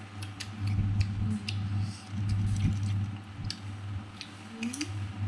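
Bites into and close chewing of crisp green mango slices: a scatter of sharp crunching clicks, over a steady low hum.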